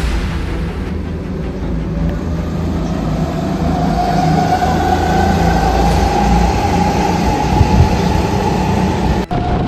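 A pack of racing karts' engines accelerating together at a rolling start: a dense engine drone over a low rumble, its pitch slowly rising as the karts pick up speed, with a brief drop near the end.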